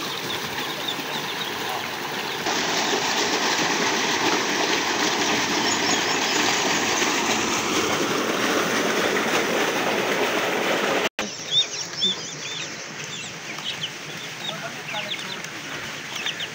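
A steady rushing noise for the first part, then, after a sudden break about eleven seconds in, a basketful of ducklings peeping in many short, high chirps.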